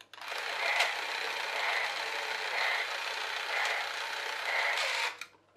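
Small electric motor and plastic gear train of a battery toy train whirring, with a faint pulse about once a second, stopping suddenly about five seconds in. The driven wheel is not turning: a split gear slips out of mesh.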